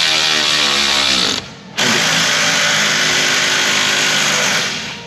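Cordless ratchet running in two bursts, about a second and a half and then nearly three seconds, driving a bolt through an ultra-shallow socket on a wobble extension. Its whir falls in pitch during the first burst.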